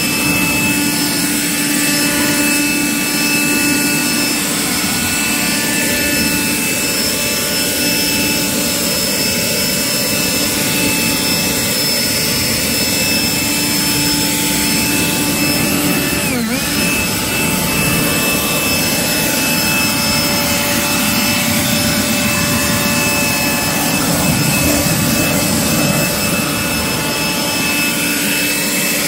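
Kobalt 40V Max cordless leaf blower running steadily, blowing water off a car's paint: a steady rush of air with a motor whine over it. About sixteen seconds in, the motor speed dips briefly and comes straight back up.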